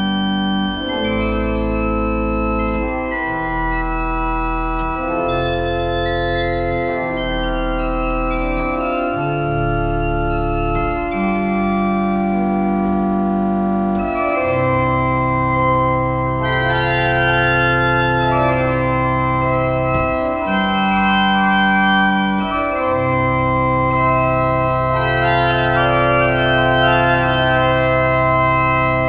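Metzler pipe organ playing a slow piece in sustained chords, the bass notes changing every second or two under a held melody.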